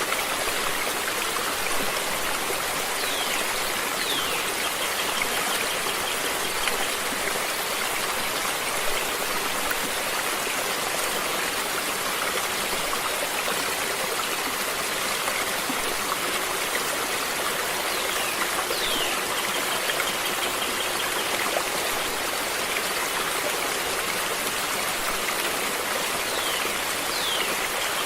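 A stream of water running steadily. Three times, a pair of faint, high chirps that slide downward sounds over the water.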